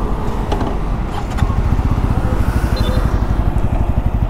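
Bajaj Pulsar N250's 249 cc single-cylinder engine idling with a steady low pulse that gets stronger about a second and a half in, with a few light clicks.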